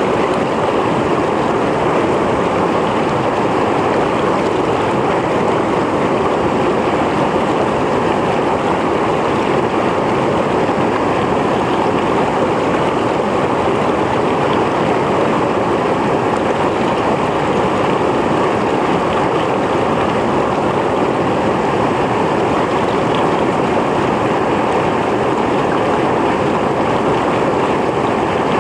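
Mountain stream flowing over rocks: a steady, loud rush of water with no breaks.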